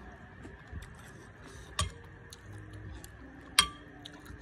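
Metal spoon and chopsticks clinking against a ceramic noodle bowl, twice, the second clink louder with a short ring.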